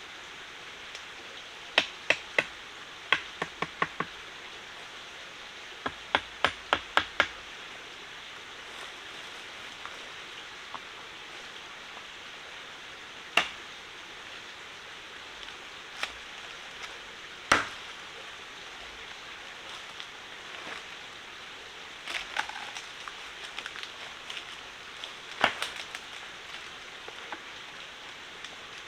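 Sharp knocks of a tool striking wood in short quick runs of three to six strokes, then single strikes spaced several seconds apart and a scattered run near the end, over a steady hiss.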